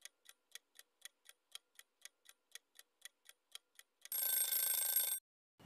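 Quiz countdown-timer sound effect: a clock ticking steadily about four times a second, then about four seconds in a short alarm ring lasting about a second as the time runs out.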